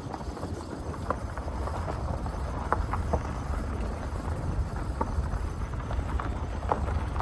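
A steady low rumble, like wind on the microphone, with scattered irregular light clicks and taps.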